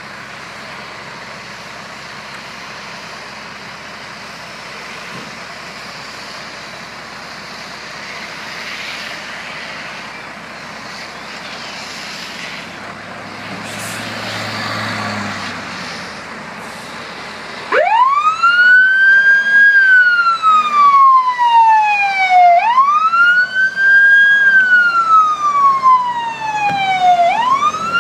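Road traffic noise, with one vehicle passing part-way through. About two-thirds of the way in, an emergency vehicle's siren starts suddenly and loud, in a wail that rises quickly and falls slowly, repeating about every five seconds.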